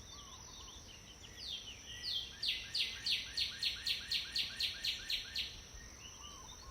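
Birdsong: a songbird sings a run of about a dozen quick down-slurred notes, roughly four a second, for some three seconds starting about two seconds in, among scattered chirps from other birds.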